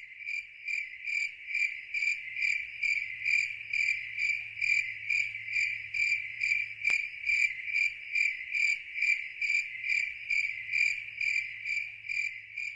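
Cricket-like chirping: a steady high trill pulsing evenly about twice a second, with one faint click about seven seconds in.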